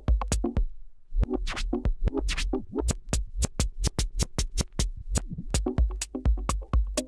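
A vinyl record of electronic dance music with a drum-machine beat being scratched by hand on a Technics direct-drive turntable. The music cuts out briefly a little under a second in, two scratch sweeps follow, then the beat plays on.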